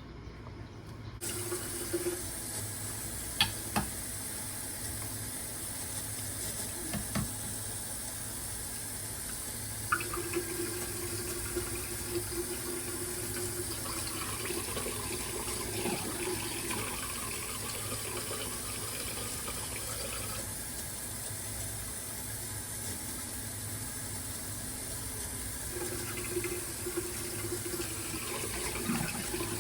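Water running steadily from a tap into a sink, with a few sharp clinks and knocks of things being handled in it.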